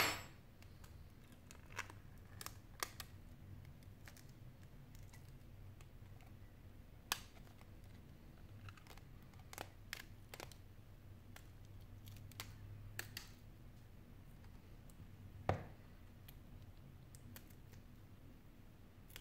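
Scattered small clicks and taps from handling a Sony Xperia Z5's cracked display and frame by hand, with a sharp click at the very start and a heavier knock about fifteen seconds in.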